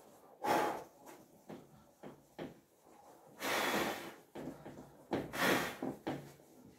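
Cloth duster rubbed over a whiteboard, a series of short rubbing swishes with three louder strokes: about half a second in, midway and near the end.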